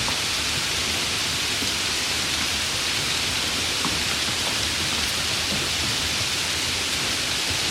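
Steady rain falling: an even hiss with a few faint scattered drop ticks.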